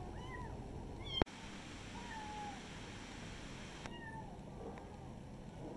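Kitten mewing repeatedly in short, thin, high-pitched calls. A sharp click sounds a little over a second in.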